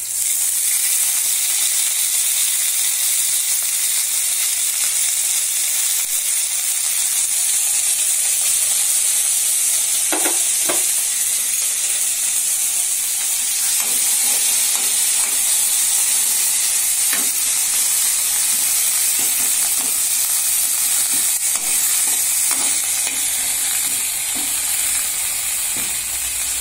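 Hot oil sizzling steadily in a kadai as fresh mint and curry leaves fry, with a spoon stirring and now and then scraping and knocking against the pan.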